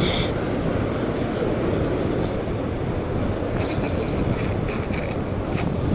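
Wind rumbling on the microphone over surf, with two spells of fine high-pitched clicking from the fishing reel, about two seconds in and again for a couple of seconds past the middle, as a large fish is fought on the line.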